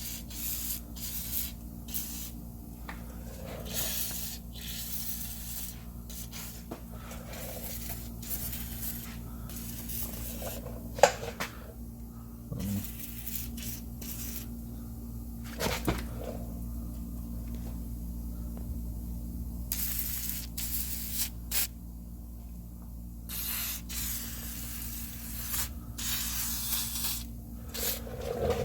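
Aerosol can of WD-40 penetrating oil spraying in repeated short bursts of hiss, some about a second long, as it soaks rusted ball joints and suspension parts. One sharp click about eleven seconds in.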